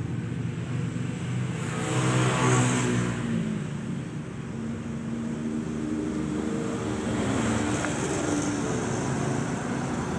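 Yamaha motorcycle engine running, revving up about two seconds in and then settling back to a steady run.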